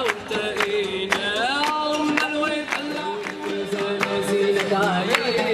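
Live Arabic music: a man singing held, gliding notes over an oud, with a regular beat of sharp strokes.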